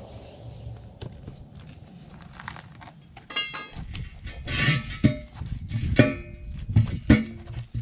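A heavy semi truck tire being handled and let down onto a wheel rim lying on concrete. It makes several dull knocks, each with a short metallic ring, at about five, six and seven seconds in.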